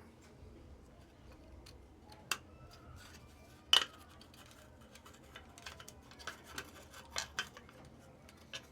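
Small hard parts being handled while working on a washing machine timer: scattered light clicks and taps. One sharp metallic click with a brief ring comes a little under four seconds in, then a run of small clicks near the end.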